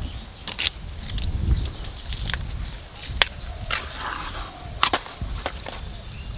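Tough outer sheaths being peeled by hand off fresh bamboo shoots: sharp snaps and crackles, about six of them, as the layers split and tear away, over a low rumble.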